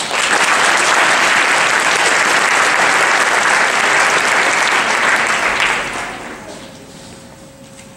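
Audience applauding: dense clapping that starts at once, holds for about six seconds, then dies away.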